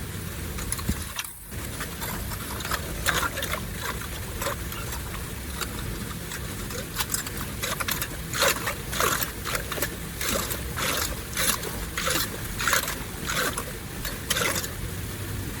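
Steady rush of water flowing through a drain, with a run of short sharp scrapes and splashes from about eight seconds in, as debris is worked loose from the blockage.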